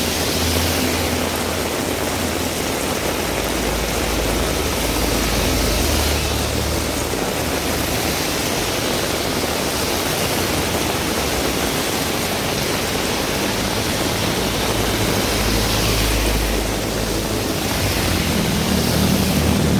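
Heavy rain falling in a steady hiss, with a low rumble from passing vehicles coming and going beneath it, strongest near the end.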